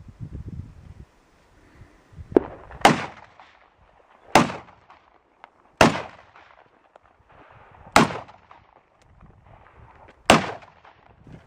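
Six gunshots at uneven intervals of about one and a half to two seconds, the first one fainter, each with a short echoing tail.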